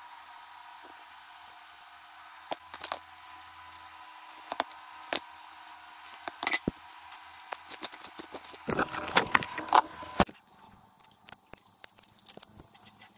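Hand-squeezing limes over a plastic tub: scattered taps and knocks of hands and lime halves against the plastic container, busiest and loudest for a second or so shortly before the end, over a steady hiss with a faint high whine. About ten seconds in it cuts abruptly to a quieter background with a few light ticks.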